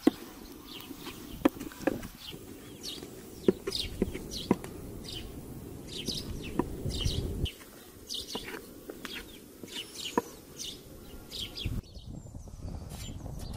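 Small birds chirping repeatedly in short high calls. A few sharp knocks stand out, from a metal dough scraper striking a wooden board.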